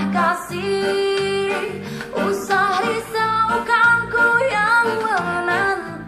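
Recorded song playing through a small portable Bluetooth speaker: a wavering melodic lead line over a steady accompaniment.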